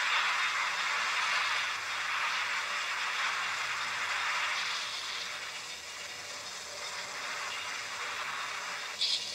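Steady hiss-like noise from a projected film's soundtrack playing over a room's speakers, strongest in the upper-middle range. It cuts off suddenly at the very end.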